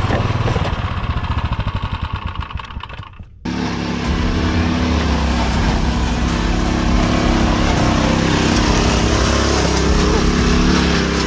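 Rokon Trail-Breaker 2x2 motorcycle engine chugging at low revs, fading away over the first three seconds or so. After a sudden cut, a Rokon engine is heard running steadily under way.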